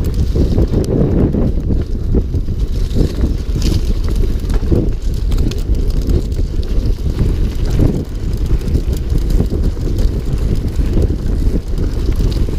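Heavy wind buffeting on the microphone, a steady low rumble, with scattered knocks and rattles from a downhill mountain bike being ridden.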